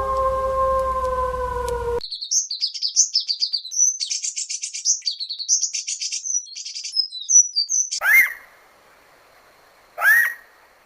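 A dog-like howl held on a steady pitch, then after an abrupt cut a small bird's rapid, high chirping and trilling song for about six seconds, followed by two short, sharp calls about two seconds apart.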